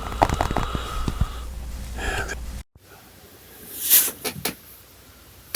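Light close-mic taps and clicks, a cluster of them in the first second or so. After an abrupt cut, a short breathy puff close to the microphone follows, then a few more single clicks.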